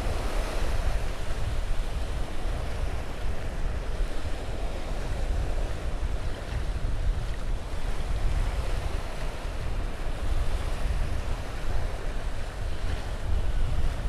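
Ocean surf washing steadily onto a sandy beach, with wind buffeting the microphone in a low, gusting rumble.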